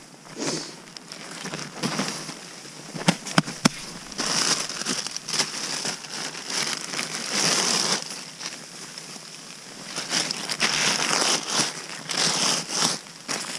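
Plastic bag and backpack rustling and crinkling as they are handled in irregular bursts, with a few sharp clicks about three seconds in.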